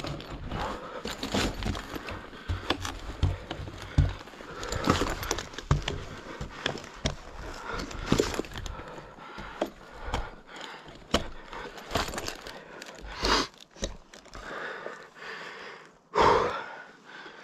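Heavy panting of a lineman climbing a wooden utility pole on spurs and harness, with irregular knocks and clicks of the climbing gear against the pole. One loud breath stands out near the end.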